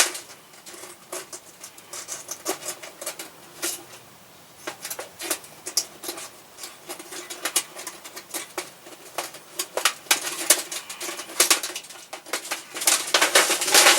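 Light, irregular clicks, scrapes and rattles of a thin sheet-metal stove body and its wire being handled as retaining wires are threaded through holes and bent tight, quieter for a couple of seconds near the start.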